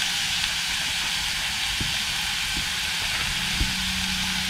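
Minced beef and chopped vegetables sizzling in a stainless steel pot on a gas camping stove, a steady frying hiss. A low steady hum comes in about three and a half seconds in.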